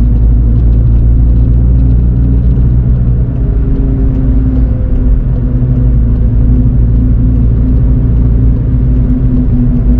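Onboard sound of a car engine running steadily at part throttle, with road and tyre rumble, while the car cruises at moderate speed. The engine note holds a steady pitch throughout.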